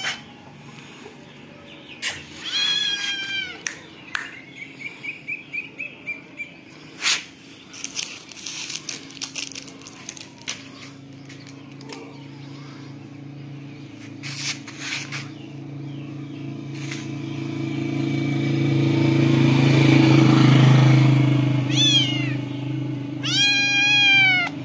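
A kitten meowing: one call about two seconds in, then two more near the end, the last one the longest. In between there are light clicks and rustles, and a low hum swells to its loudest around twenty seconds in, then fades.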